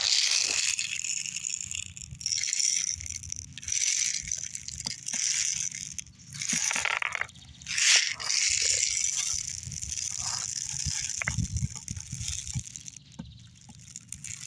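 Steel BBs rattling in their container as they are shaken and poured into the BB pistol's magazine, in repeated spells a second or two long, with handling noise.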